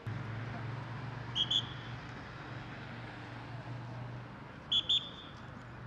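Traffic police officer's whistle blown in two quick double toots, a few seconds apart. Under them runs a low steady engine hum from waiting traffic that weakens about four seconds in.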